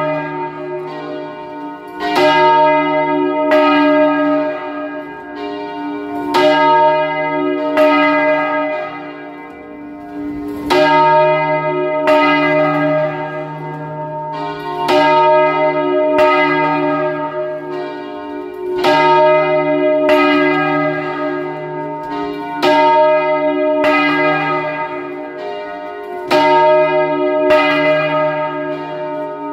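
Large church bell being swung full circle by hand, its clapper striking about every two seconds. The strokes alternate louder and softer, and each rings on with a deep hum beneath, heard close up inside the belfry.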